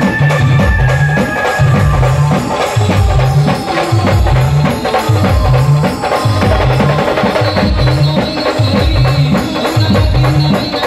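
Brass-band style street band music: drums beaten with sticks over a heavy low beat that recurs about once a second, with a melody line held over the top.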